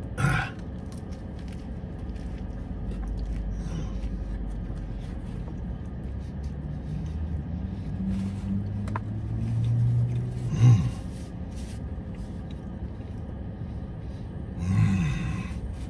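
A man eating a vegan meatball sub, chewing with his mouth close to the microphone, over a steady low rumble like a car's cabin. A short low hum of approval comes about eleven seconds in, and another near the end.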